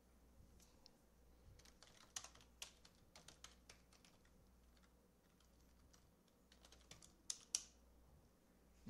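Faint computer keyboard typing: two spells of quick keystrokes, the loudest presses near the end.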